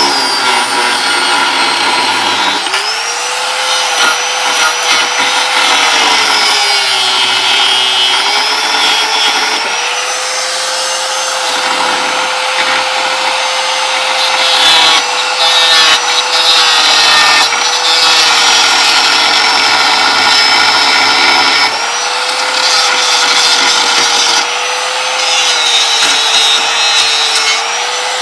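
Angle grinder with a worn-down cutting disc cutting into the heads of a ball joint's fixing bolts on a steel suspension arm. The motor runs continuously, its pitch sagging as the disc bites under load and picking up again, over a steady rasp of grinding.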